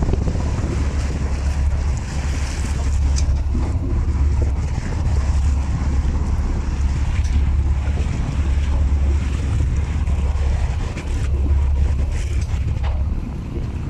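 Wind buffeting the microphone in gusts, a heavy low rumble that rises and falls, over the running of a small workboat and water washing against the hull. A few faint light ticks come through.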